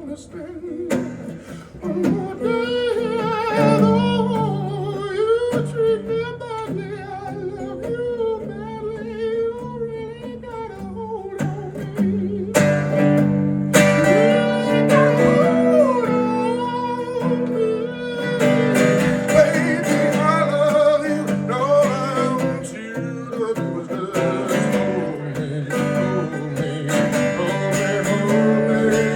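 Acoustic band music with guitar: a wavering, vibrato lead melody over steady chords, an instrumental stretch that grows fuller about halfway through.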